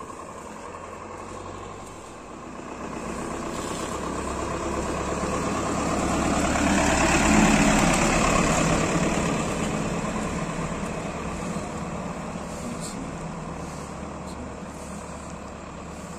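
A bus drives past close by: its engine grows steadily louder, peaks about halfway through, then fades as it moves off down the road.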